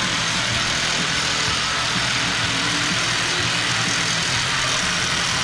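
A machine running steadily: an even, loud rushing noise over a low hum, unchanging throughout.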